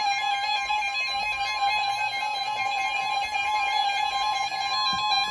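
NOAA Weather Radio receiver sounding the 1050 Hz warning alarm tone, a steady high single-pitch tone that announces a warning broadcast, here a Special Marine Warning. A lower wavering tone sounds along with it.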